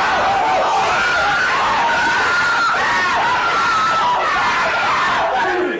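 A group of people screaming and yelling together, loud and continuous, starting abruptly.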